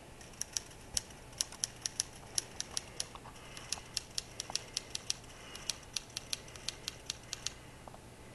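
A run of sharp, light clicks at an uneven pace, about three to five a second, stopping shortly before the end.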